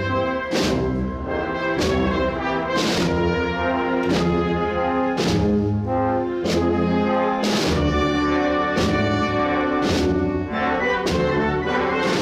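Processional brass band playing a slow Holy Week march: held brass chords over a steady drum stroke about once a second.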